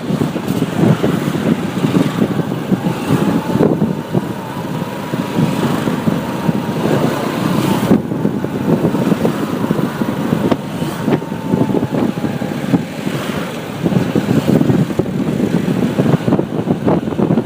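Riding a motorbike through traffic: engine and road noise under heavy wind buffeting on the microphone, with passing traffic around. The sound is steady throughout, with a faint thin tone through the middle.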